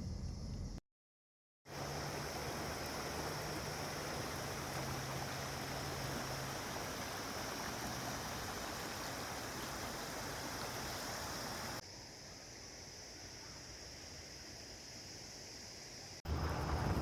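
Water rushing steadily down a wadi stream, heard across several cut-together clips: a brief gap of silence about a second in, and the rush becomes quieter from about twelve seconds in.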